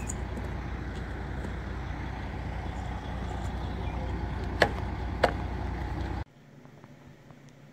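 Two sharp pops about two-thirds of a second apart as the strap buckles of a truck's side curtain are undone: the pop noise the side curtain makes as it is released. They stand over a steady low rumble that cuts off suddenly about six seconds in.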